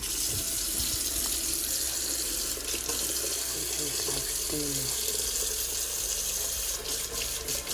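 Water running steadily from a tap, a continuous even rush that starts abruptly.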